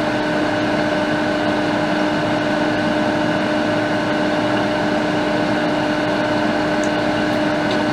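Steady machine hum with constant pitched tones over a background rush, even in level throughout.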